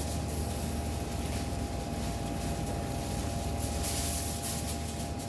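Plastic cling wrap rustling and crinkling as it is pulled over a pan, loudest about four seconds in, over a steady background hum with a faint whine.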